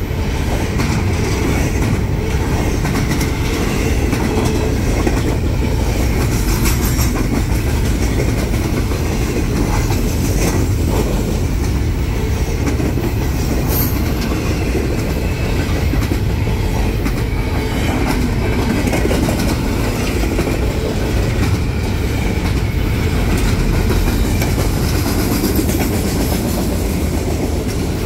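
Freight train cars rolling past in a steady, loud rumble, with occasional clicks from the wheels.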